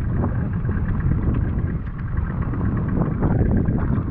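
Steady low wind rumble on the microphone, with water lapping and splashing against the hull of a small open boat.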